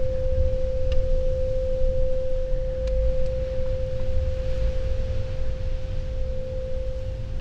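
A steady, pure electronic tone held at one pitch throughout, over a low rumbling noise, with a few faint clicks.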